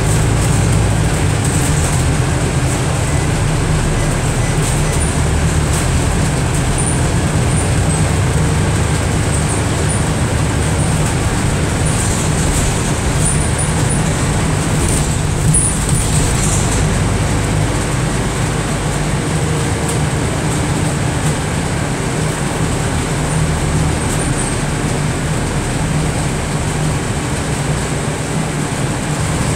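Scania Enviro400 MMC double-decker bus heard from inside on the upper deck while driving: a steady low engine and drivetrain rumble with road noise. A few faint high squeaks come through about halfway.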